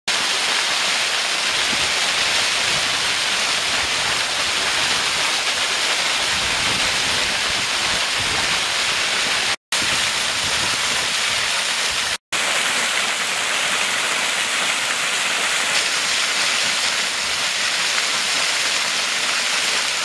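Water of a hand-dug irrigation ditch pouring down a small waterfall over gravel and rock, a steady rushing splash. The sound cuts out for an instant twice near the middle.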